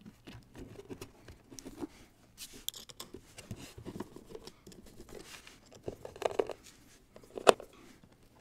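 Handling noise as a loudspeaker cabinet panel and its gasket are pushed into place over wood screws: scattered scraping, rustling and small clicks, with one sharper knock about seven and a half seconds in.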